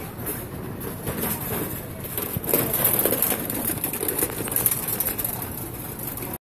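Busy street crowd ambience: a steady hubbub of indistinct voices and movement from people walking close by, busier from about halfway through.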